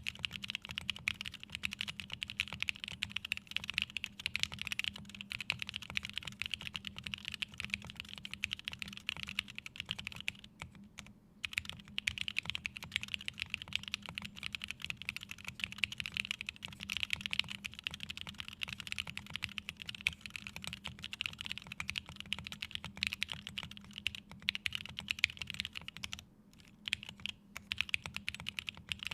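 Fast, continuous typing on an Aurora Input Series mechanical keyboard with Aluvia aluminium keycaps and SP-Star Sacramento switches lubed with Krytox 205g0 and filmed: a rapid stream of keystroke clacks, with a short pause about ten seconds in and brief breaks near the end.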